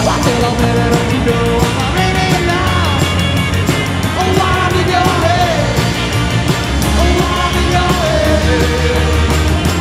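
Loud rock song with a singing voice over a steady drum beat.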